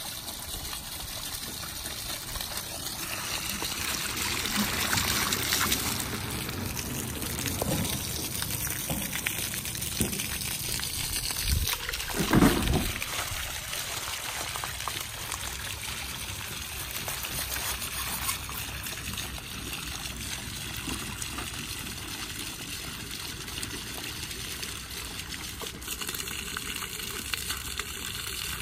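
Water spraying and splashing from the top of a borehole casing onto the ground, a steady gushing that shows the solar-powered submersible pump down the well is running and delivering. About twelve seconds in there is one brief low bump, the loudest moment.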